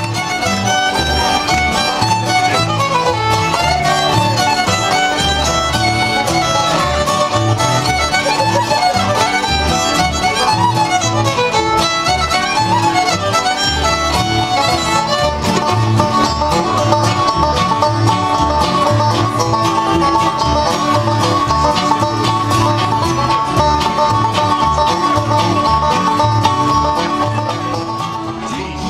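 Live bluegrass band playing an instrumental break: a fiddle leads the melody over banjo, acoustic guitars and upright double bass keeping a steady beat. The melody runs in quick notes at first and settles into long held notes about halfway through.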